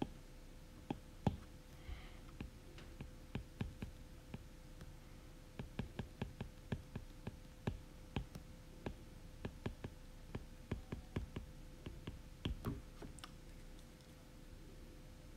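Stylus tapping and clicking on a tablet's glass screen during handwriting: a run of irregular sharp ticks, thickest in the middle, over a faint steady hum.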